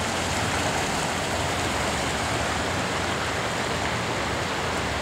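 Fast-flowing river running high with snowmelt and rain, a steady rush of water over logs and rocks with a low rumble underneath.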